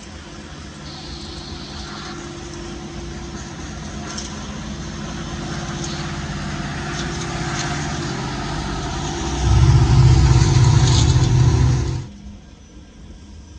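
Freight train rolling past, with wheel and car rumble and light high-pitched wheel squeals and clicks, growing louder as the rear pair of Norfolk Southern diesel locomotives comes by. Their engines add a heavy low rumble for the last few seconds before the sound drops away sharply.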